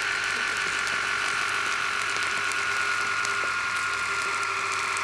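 Dishwasher pump's small induction motor running with its coil burning out: a steady whine that sags slightly in pitch over a mains hum, with fine crackling throughout.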